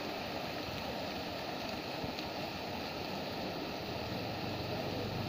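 Garden fountain's tall water jet splashing steadily into its basin. A low steady hum comes in about four seconds in.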